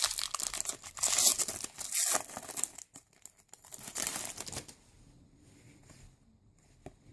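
Wrapper of a football trading-card pack being torn open and crinkled, the rustling stopping about four and a half seconds in.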